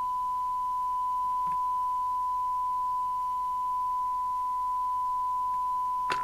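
Steady, pure test tone from the Maxcom 4E CB radio's receiver, which is demodulating a tone-modulated test signal while its FM detector is checked during receive alignment.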